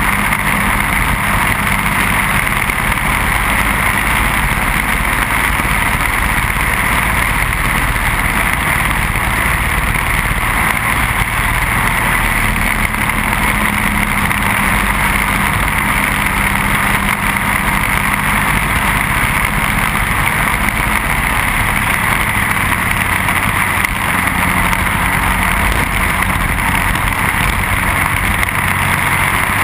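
Briggs & Stratton Animal single-cylinder four-stroke kart engine running steadily at racing speed, heard on board with strong wind rush on the microphone.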